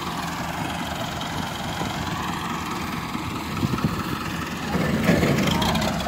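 Diesel farm tractor engines idling steadily. Near the end the engine sound grows louder.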